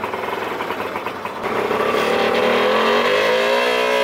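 Auto-rickshaw engine running just after starting: a rapid, even putter at first, then revved up about a second and a half in, its pitch climbing and holding high.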